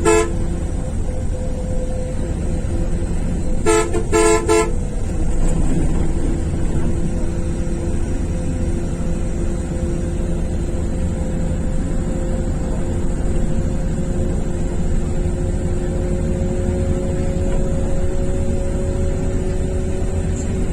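A horn gives three quick short toots about four seconds in, after a brief toot right at the start, over a steady low rumble of wind with a faint steady hum that slowly rises in pitch.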